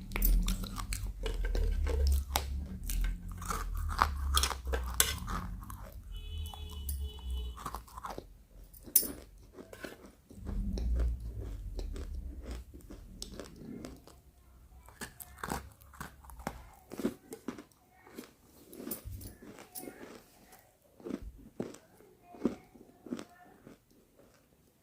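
Close-up crunching and chewing of roasted pink chalk: dense, sharp crunches for the first half, thinning to slower, quieter chewing clicks in the second half.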